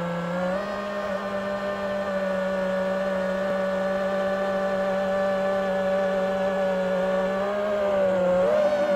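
Quadcopter drone's motors and propellers whining steadily in flight, the pitch dipping briefly at the start and again near the end as the throttle changes.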